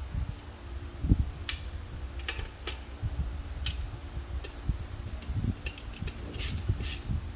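Irregular light metallic clicks and ticks from hand tools working on a transmission case, over a steady low hum.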